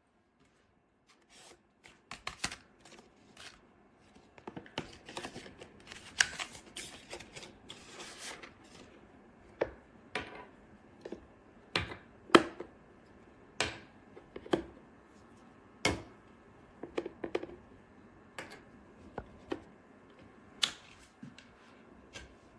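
Irregular sharp clicks and knocks, loosely bunched at first and then coming about once a second, in a small room.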